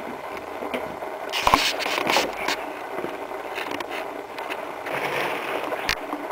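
Handling noise from a handheld camera moved about: irregular rustling and scraping with a few sharp knocks, the loudest about a second and a half in and again near the end.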